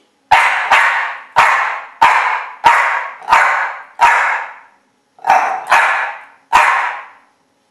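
Coton de Tuléar barking ten times, a count of the answer to A plus I (1 + 9) in a letter-counting trick: seven evenly spaced barks, a short pause, then three more, each with a short echo from a tiled room.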